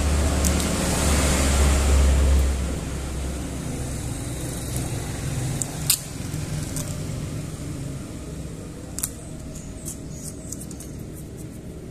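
A motor vehicle passes with a low rumble that fades out about two and a half seconds in. After it come small clicks and taps from handling the opened phone, one sharp click about six seconds in and a few lighter ones near the end.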